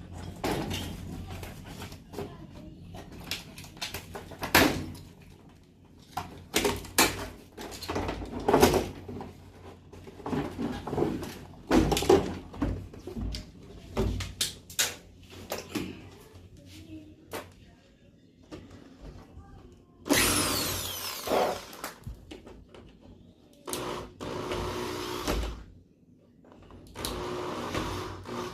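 Clatter and knocks of metal and plastic parts and hand tools being handled while a washing machine is taken apart, followed by three short runs of a small power tool's motor near the end.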